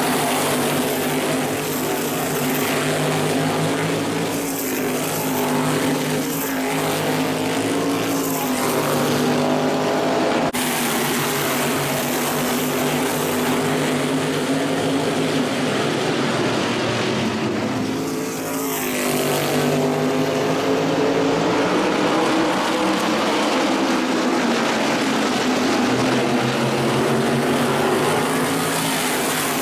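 A pack of modified race cars running at racing speed, their engine notes rising and falling as the cars pass. The sound is loud and steady, with an abrupt edit cut about ten seconds in.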